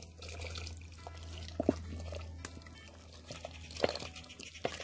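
Faint background music with a steady low hum, broken by a few light, sharp clicks and knocks.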